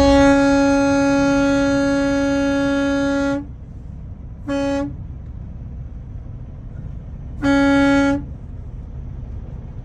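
A vehicle horn blown three times in a single steady tone: one long blast of about three and a half seconds, a short toot, then a blast of under a second, over a low rumble of traffic and wind.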